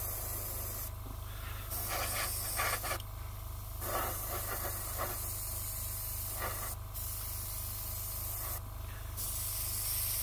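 Airbrush spraying paint: a steady airy hiss that cuts off and restarts about four times as the trigger is let go and pressed again, over a low steady hum.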